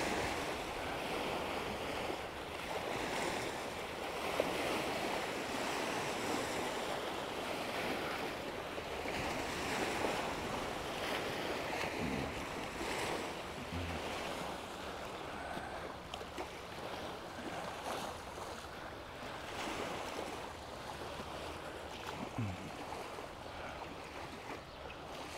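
Small lake waves lapping against the shore in a steady, gently swelling wash, with wind blowing over it.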